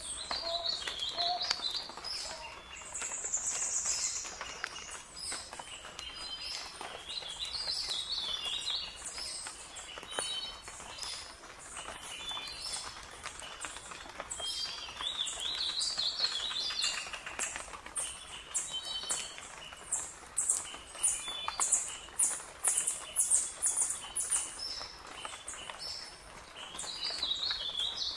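Forest ambience of many birds chirping and calling, short high wavering calls overlapping one another, with a run of quick, sharp repeated notes in the second half.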